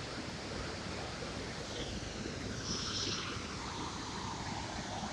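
Steady rushing noise of running water at a dam's surge pool, the flow that wears away the rocks.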